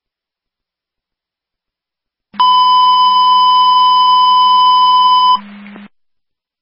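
Emergency dispatch radio alert tone: one steady high beep held for about three seconds over a low hum, heard through scanner audio, then ending in a brief burst of static as the transmission drops.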